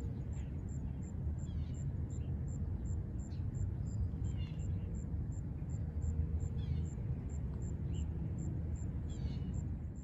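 Outdoor ambience: a steady low rumble with small birds chirping now and then, and a faint high ticking about two and a half times a second. No siren is sounding.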